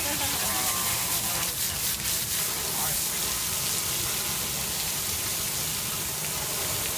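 A jet of water from a garden hose spraying onto an elephant and splashing off its body, a steady hiss and patter.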